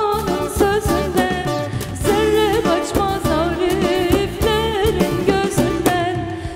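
A woman singing a Turkish folk song (türkü) with an ornamented, wavering melody, accompanied by plucked bağlama (saz) lutes and a hand-drum beat.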